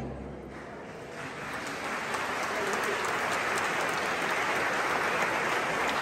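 A crowd applauding: the clapping starts softly about a second in and swells to a steady, dense applause, while the last of the music before it dies away at the very start.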